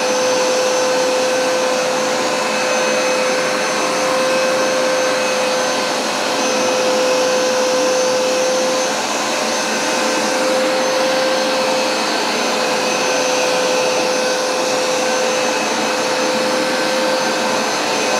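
Hoover SmartWash Pet automatic carpet cleaner running on carpet: its suction motor and brushes give a loud, steady mechanical noise with a steady high whine, the level rising and falling slightly as it is worked over the carpet in cleaning passes.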